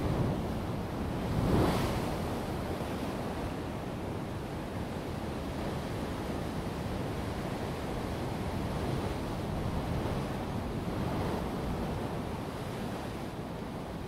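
Ocean waves breaking on a rocky volcanic shore with small blowholes, a continuous rushing wash of surf. About a second and a half in, a loud surge rushes in as a wave crashes into the rock and sprays up. After it, water keeps pouring back off the rock shelf in a steadier roar, with smaller swells rising and falling.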